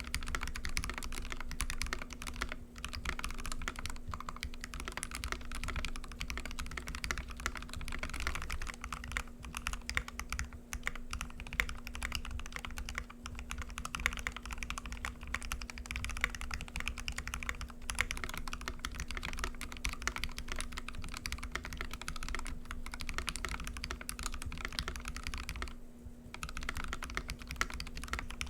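Continuous fast typing on a custom KBD67 mechanical keyboard with a brass plate, lubed Gateron Ink switches and GMK keycaps: a dense run of keystroke clacks with a short pause near the end.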